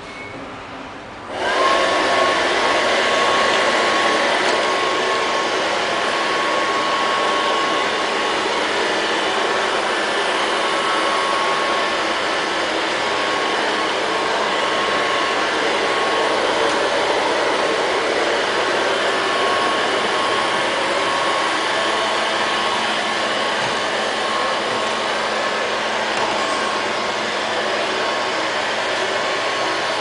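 LL-302 robot vacuum cleaner switching on about a second and a half in, then running steadily, its suction fan giving a steady high whine over a constant rush of air.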